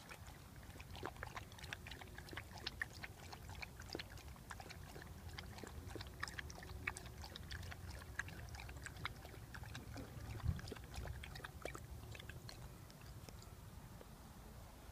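Dog lapping and splashing water from a shallow bowl: an irregular run of quick wet clicks, several a second, fading out near the end. One louder dull thump about two-thirds of the way through.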